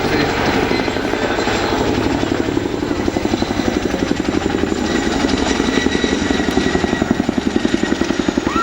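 Boeing Chinook Mk2 tandem-rotor helicopter in flight: the fast, pulsing chop of its two rotors over a steady high turbine whine.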